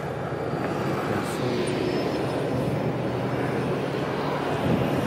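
Steady rushing jet-aircraft noise with a low drone, swelling slightly at first and then holding steady.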